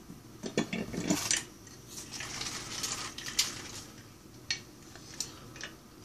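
Hinged metal hand-held lime squeezer being worked to press a lime: scattered sharp metallic clicks and clacks, with a soft hiss about two to three seconds in.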